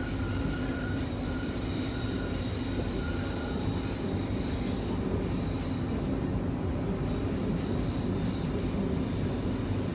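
Queensland Rail New Generation Rollingstock electric train heard from inside the carriage while under way, with a steady rumble of wheels on rails. A faint high whine sounds over the first few seconds.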